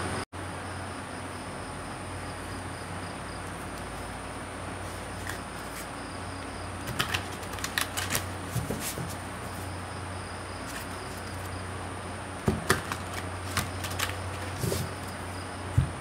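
Deck of cards being shuffled by hand, heard as quick runs of light clicks about halfway through and again near the end, with a few soft knocks as the deck is handled on the table. A steady low hum and hiss lies underneath.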